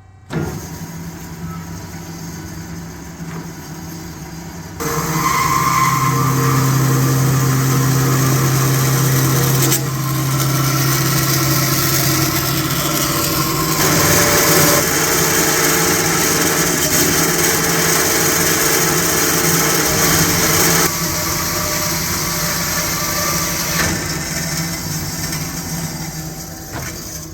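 18-inch semi-automatic double-miter metal-cutting bandsaw starting up and running a miter cut through metal stock: the motor and blade start with a steady hum, the sound steps up about five seconds in as the blade works through the cut, holds steady, then drops back around twenty seconds in and fades near the end as the cut finishes.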